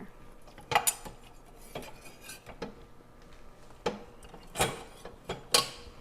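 Dishes and cutlery clinking and knocking against the racks of a compact countertop dishwasher as it is loaded, about six separate sharp clinks.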